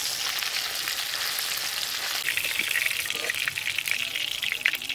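Pieces of marinated stingray frying in hot mustard oil in a steel karai: a steady sizzle full of small crackling pops, which grows denser and louder about two seconds in.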